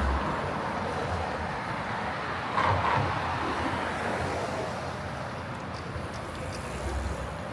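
City street traffic: a steady rush of passing vehicles, swelling briefly a few seconds in as one goes by.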